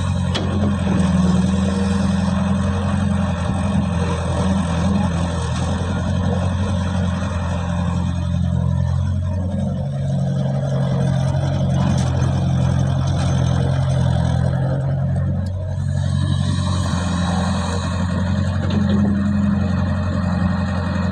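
Caterpillar E70B excavator's diesel engine running steadily under load while the arm and bucket dig and lift mud. Its note drops for several seconds around the middle and rises again toward the end.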